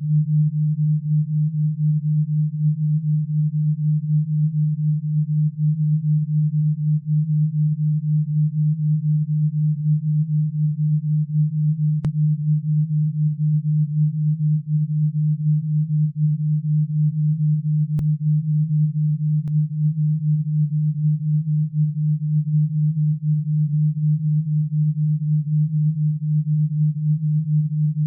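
Alpha-wave brainwave-entrainment tone: a single low, steady sine tone pulsing rapidly and evenly, meant to steer the brain toward the 8–12 Hz alpha rhythm for relaxation and tinnitus relief.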